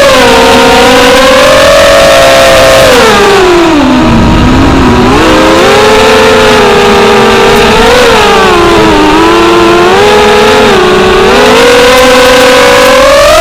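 FPV racing quadcopter's motors whining continuously, the pitch rising and falling with the throttle. It drops low about four seconds in, then climbs back up toward the end.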